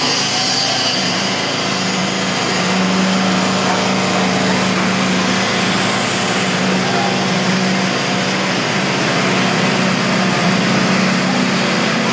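Concrete-pouring machinery running steadily on a construction site: a constant engine-like hum under a broad hiss, with no change in pace.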